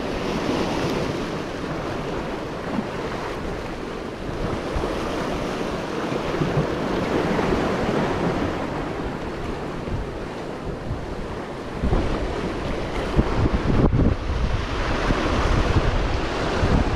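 Sea waves breaking and washing over the boulders of a rock jetty, with wind buffeting the microphone. The low wind rumble grows stronger about twelve seconds in.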